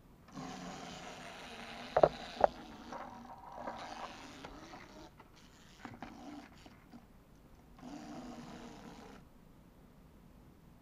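Clockwork wind-up motors of plastic 3D-puzzle toy cars whirring as the cars run across a table, with two sharp knocks about two seconds in.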